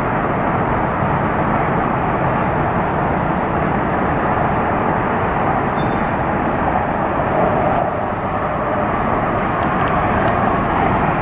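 Hot air balloon's propane burner firing in one long, steady roar.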